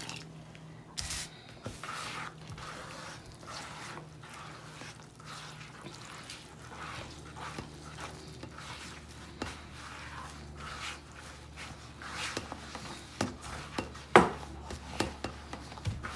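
Hands mixing flour, water and oil into a dough in a plastic bowl: soft, irregular rubbing and patting strokes, with one sharper knock near the end. A steady low hum runs underneath.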